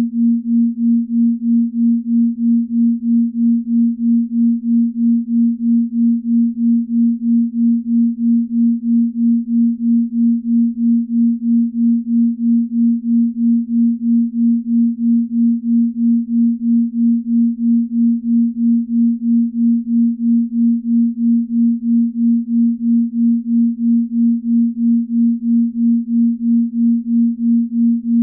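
Binaural beat: a single steady low pure tone, its loudness pulsing evenly about three times a second.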